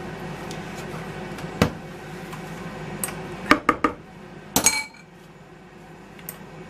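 Wire beaters of an electric hand mixer clicking and clinking as they are released and pulled out of the mixer, a few sharp clicks followed by a louder ringing metal clink near the end.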